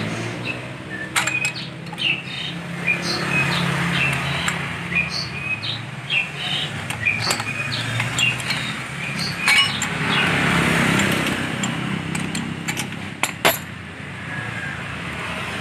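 Metal hand tools clicking and clinking on a Yamaha Mio's CVT clutch as the clutch-bell nut is worked loose with a socket wrench and clutch holder. A steady motor hum runs behind, with scattered short high chirps.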